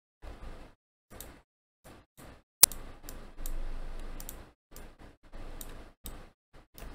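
Scattered clicks and taps of a computer mouse and keyboard, in short separate bursts, with one sharp, louder click about two and a half seconds in.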